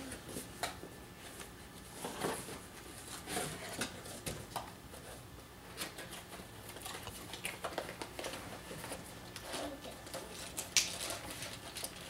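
Cardboard box and packaging being opened and handled by hand: scattered light rustles, scrapes and taps of cardboard flaps and contents, with one sharper tap near the end.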